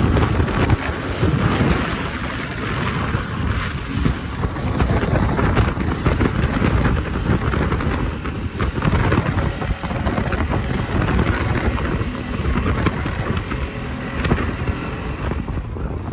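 Wind buffeting the microphone on a speedboat under way at speed, over the noise of its Yamaha outboard motor and the rushing wake.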